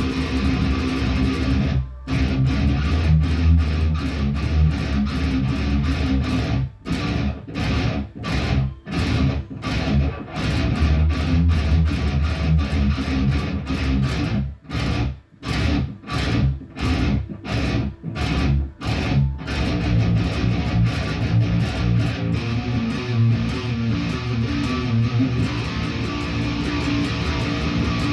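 Guitar practice: strummed chords, stopped short again and again with brief silent gaps through the middle stretch, then played on continuously near the end.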